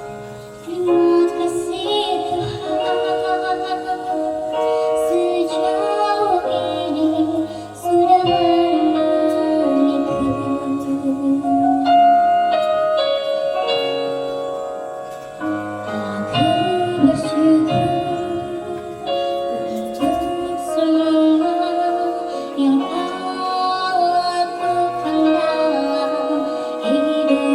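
Music: a woman singing a slow song over instrumental accompaniment.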